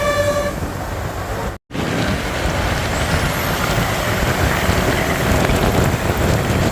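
A bus's basuri horn, a multi-tone musical air horn, holds its last chord for about half a second, then stops. After a brief cut, steady road traffic noise follows.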